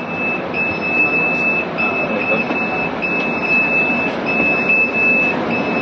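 Electronic warning beeper inside a bus: one high beep about a second long, repeating about once a second with short gaps, over the steady running noise of the bus.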